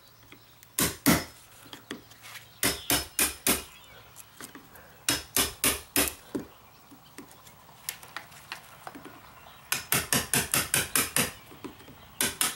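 A wood chisel struck with a hammer in short runs of sharp taps, cutting the deadbolt pocket in a wooden door jamb deeper little by little. A fast run of about ten blows comes near the end.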